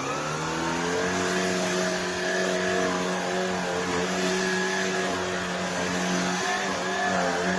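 Shark IZ362H cordless stick vacuum running on its carpet setting, picking up cornmeal. Its motor rises in pitch over about the first second as it speeds up, then holds a steady whine.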